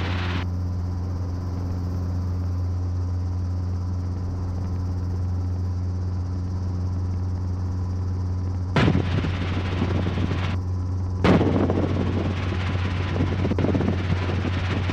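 Safari experimental piston helicopter in flight, heard from inside the open cockpit: a steady, low engine and rotor drone. About nine seconds in it turns louder and rougher, with more rushing noise.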